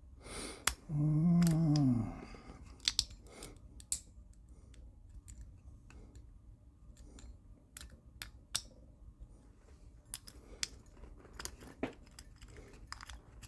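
Light, irregular metallic clicks and ticks of a shallow hook pick and tension wrench working the pins inside a Paclock PL 410 Pro padlock, with a short hum from the picker about a second in. The pins are not setting: the pick seems too short to reach the seventh pin.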